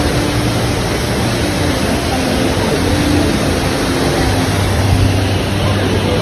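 Steady rushing of the Rain Vortex, a large indoor waterfall pouring from a roof opening into a pool below.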